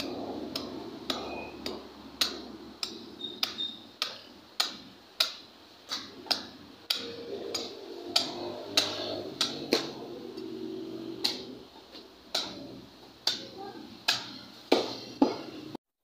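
Butcher's cleaver chopping through a rack of raw ribs on a chopping block, with sharp chops about two a second. The chopping cuts off abruptly near the end.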